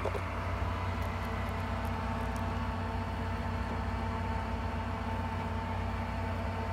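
Steady low electrical hum with a faint constant whine, from a running small motor. A few faint light clicks come between about one and two and a half seconds in.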